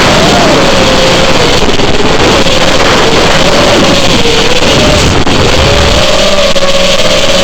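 FPV quadcopter's electric motors and propellers whining, the pitch wavering up and down as the throttle changes, over loud wind rush on the onboard microphone.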